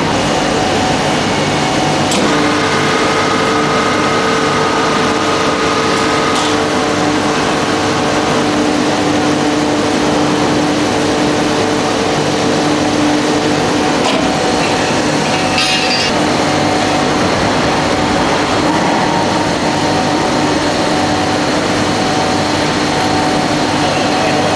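Steady machinery noise in a factory hall, with a constant hum whose tones change about two seconds in and again around fourteen seconds.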